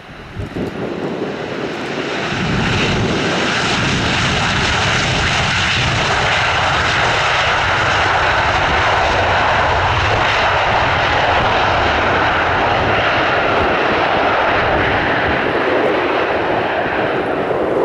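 Airbus A321 jet engines rising to high power over the first two or three seconds, then running loud and steady.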